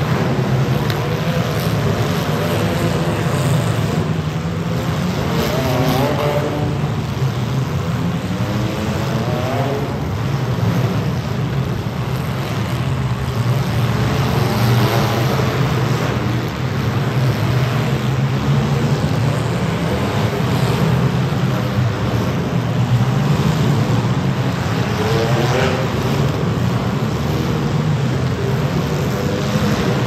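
Engines of several compact demolition-derby cars running loud and revving, their pitch rising and falling again and again.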